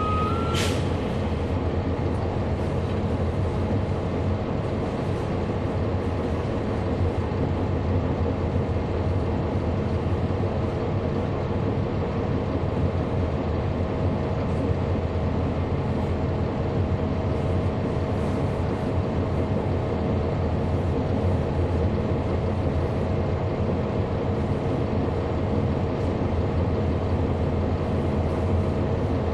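A Cummins ISL9 diesel engine in a 2011 NABI 40-foot transit bus, heard from on board, running with a steady, even drone that holds one pitch throughout. A short hiss of released air, typical of the bus's air brakes, comes about half a second in.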